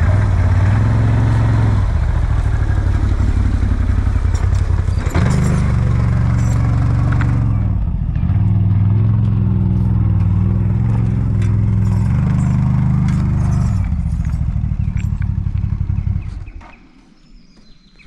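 Small quad bike's engine running hard under load, its pitch and strength shifting as the throttle changes, with scattered knocks and clatter. The engine sound cuts off abruptly near the end.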